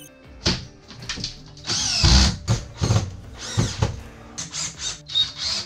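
Power drill run in a series of short trigger bursts, one longer run about two seconds in, fastening into wall framing. Faint background music plays underneath.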